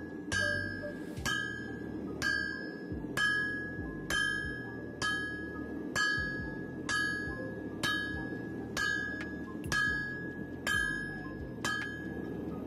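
Hand hammer striking hot leaf spring steel on an anvil about once a second, steady and even, each blow leaving a short high metallic ring that fades within about half a second: the bar being drawn out by hand.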